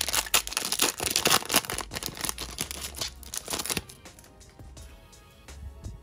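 Foil trading-card pack wrapper crinkled and torn open by hand, a dense crackling rustle that stops about four seconds in. Soft background music runs underneath.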